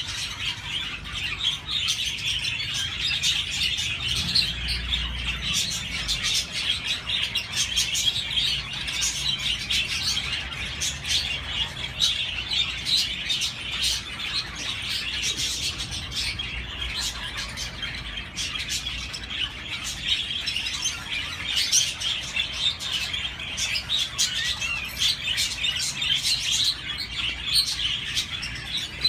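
Budgerigars chirping and warbling without a break: a dense, unbroken stream of rapid, high chirps.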